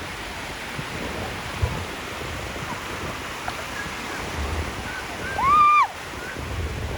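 Ocean surf washing steadily on the shore. About five and a half seconds in, a short high-pitched cry that rises and falls rings out above it, the loudest sound, with a few fainter short calls just before.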